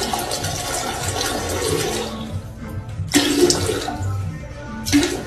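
Toilet flushing: a rush of water into the bowl that eases off after about two seconds, surges again around three seconds in, and gives a short final gush near the end.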